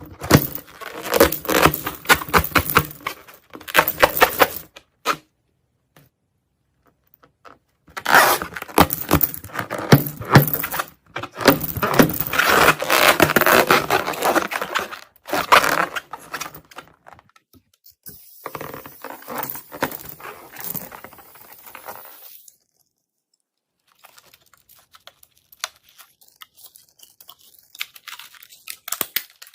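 Slime being squeezed and worked by hand, making dense sticky crackling and clicking. It comes in two long stretches with a pause between, then a softer hissing stretch and a few faint clicks near the end.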